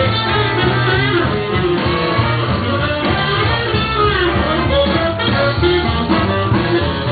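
Background music with guitar and a steady low beat.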